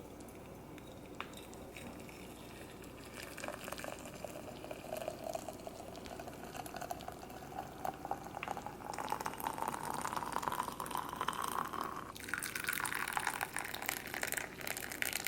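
Liquid running into a container, with a tone that rises steadily as the vessel fills.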